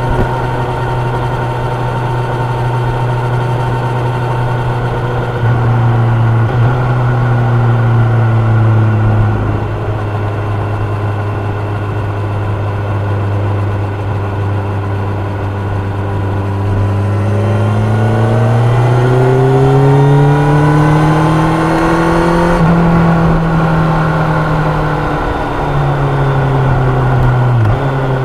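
Kawasaki Ninja 1000's inline-four engine and exhaust under way at a steady cruise, then accelerating with a rising pitch about two-thirds through and easing off again near the end.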